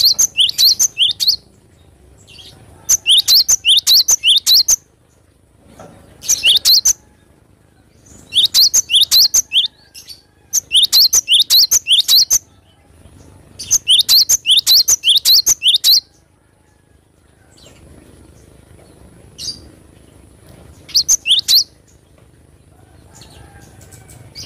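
Cinereous tit (gelatik batu) singing loud, rapid strings of sharp, high notes in bursts of one to two seconds with short pauses between. After about 16 s it sings only one short burst, a little past 21 s.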